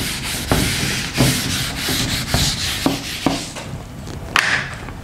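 Whiteboard being wiped with a handheld eraser: a dry rubbing hiss in repeated back-and-forth strokes. The wiping stops about three and a half seconds in, and a short click follows near the end.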